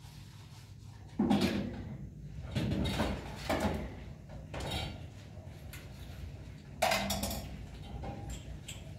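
Dishes and kitchenware being handled at a sink, a series of clattering knocks. The loudest come about a second in and again near seven seconds.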